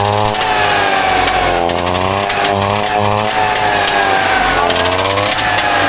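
Trabant 601's two-stroke twin-cylinder engine running and being revved, its pitch rising and falling about once a second.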